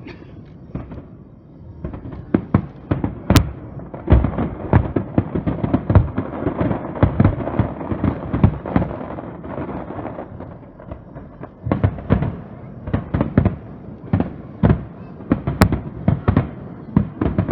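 Aerial fireworks display: shells bursting in a dense barrage of sharp bangs, several a second, after a quieter first two seconds.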